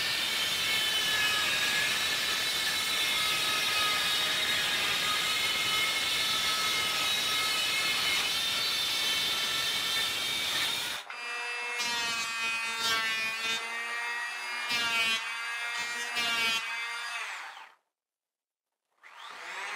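Cordless circular saw cutting through plywood: a motor whine over the rasp of the blade in the wood. About eleven seconds in, the whine turns cleaner and dips briefly several times. After a moment of silence, a handheld power planer spins up with a rising whine near the end.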